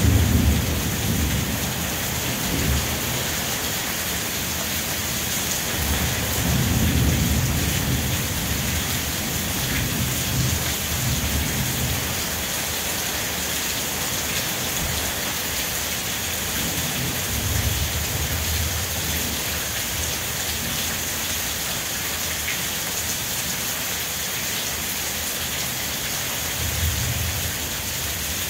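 Steady rain falling, a constant hiss, with a few low rumbles now and then, the longest about seven seconds in.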